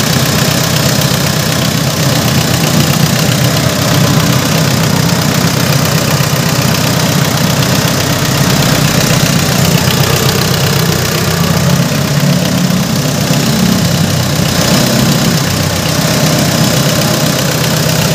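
Mitsubishi 4D56 four-cylinder diesel engine idling steadily, freshly top-overhauled.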